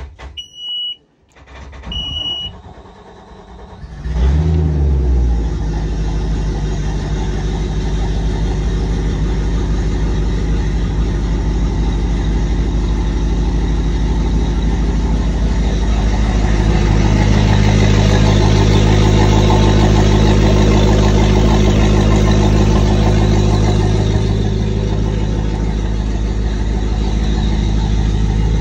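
Two short high beeps, then the sterndrive engine of a Baja 20 Outlaw speedboat cranks and starts about four seconds in, with a brief rev. It settles into a steady, even idle that picks up slightly partway through.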